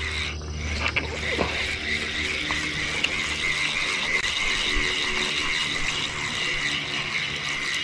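Fishing reel being cranked steadily, a continuous mechanical whir, as a fish that has taken the bait is reeled in. Steady high insect chirping runs underneath.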